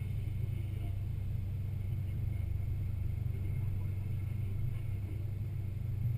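A Jeep's engine and drivetrain running with a steady low rumble as it drives slowly over beach sand, heard up close from a camera mounted on its hood.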